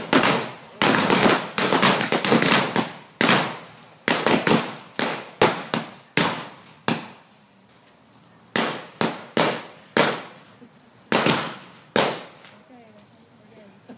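Blank gunshots from a staged Old West gunfight: many shots in rapid, overlapping succession, then after a short pause about six more single shots, each followed by a brief echo.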